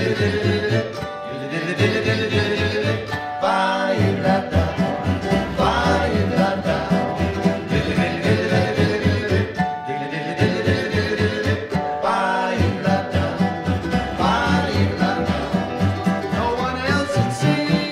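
Jug band playing a swing tune live: mandolin, acoustic guitar and dobro keep a steady beat, with melody lines sliding up and down in pitch over it.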